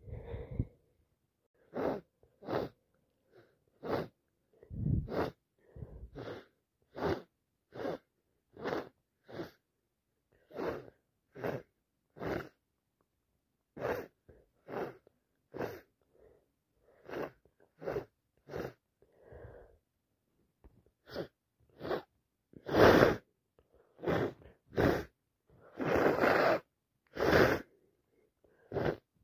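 A person with a head cold sniffling over and over, short sniffs about once a second and sometimes in quick pairs, with a few louder, longer ones near the end.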